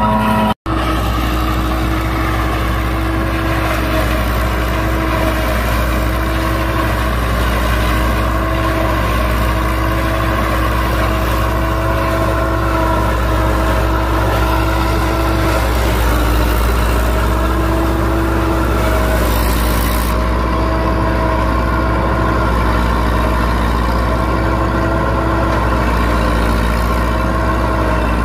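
IMT 558 tractor's diesel engine running steadily under load, driving a SIP SK 80 forage harvester as it chops maize into silage, with a dense hiss over the engine. The sound breaks off for an instant about half a second in.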